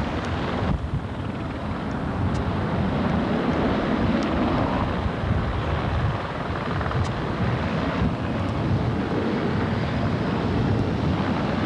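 Boeing 727-27's three Pratt & Whitney JT8D turbofans at takeoff thrust, a steady loud jet roar as the aircraft climbs away.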